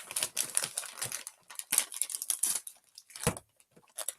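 Plastic snack wrapper crinkling and crackling as it is handled and pulled at, a tightly sealed pack being worked open, with one sharp crack about three seconds in.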